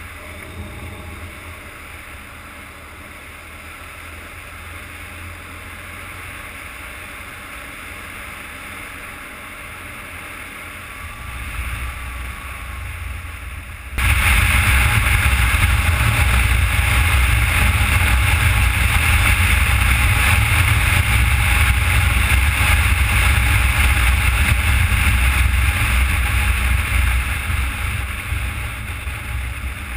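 Motorcycle riding at speed, its engine a low rumble under the rush of wind over the camera's microphone. About halfway through the sound jumps suddenly much louder, the wind noise and engine rumble becoming a dense roar.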